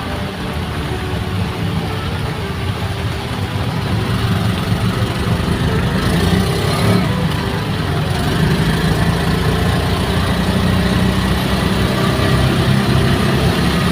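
Bemo minibus engine running steadily, heard from on board, getting somewhat louder about four seconds in.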